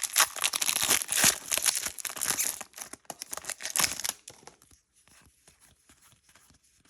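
Crinkling and tearing of a foil Pokémon booster-pack wrapper, dense for about four seconds, then dropping to faint rustling.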